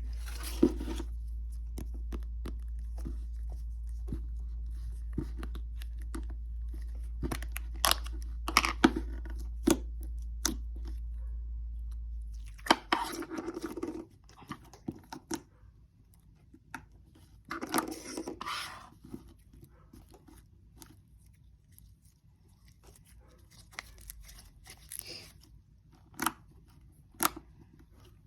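Store-bought slime being stretched, pressed and pulled apart by hand, with sticky crackling, clicking and tearing sounds in short bursts. A steady low hum underneath stops about halfway through.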